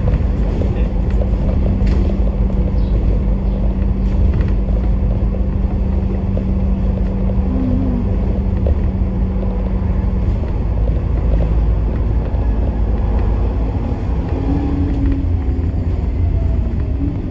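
Bus running along the road, heard from on board: a steady engine and road rumble, with a low hum that drops out about ten seconds in.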